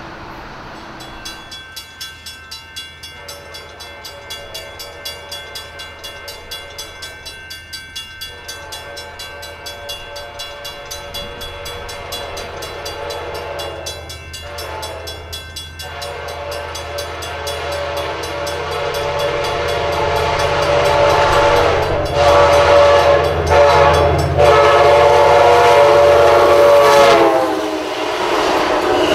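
Amtrak F59PHI locomotive's Nathan K5LA five-chime horn sounding the crossing pattern (long, long, short, long) over ringing crossing bells, growing louder as the train approaches. The horn chord drops in pitch as the locomotive passes near the end, with the diesel engine rumbling underneath.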